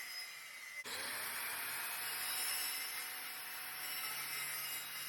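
Electric power saw cutting wood, with a steady high whine. About a second in the sound breaks off sharply and the motor spins back up, rising in pitch, then runs steadily again.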